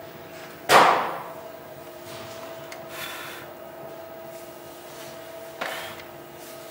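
Electric potter's wheel running with a steady hum while a clay bowl is trimmed on it, broken by two sharp knocks: a loud one about a second in and a lighter one near the end.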